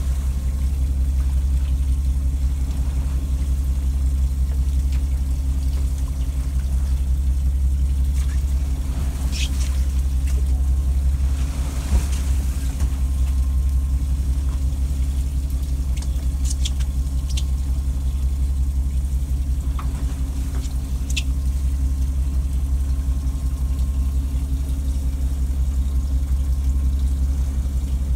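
A fishing boat's engine running steadily with a low hum. A few brief high squeaks and a single knock about halfway through.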